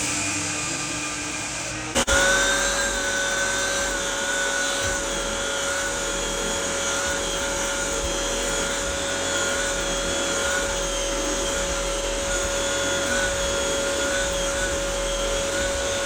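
Floor-sanding equipment with its dust-extraction vacuum running with a steady whine. About two seconds in the sound jumps abruptly to a new steady pitch.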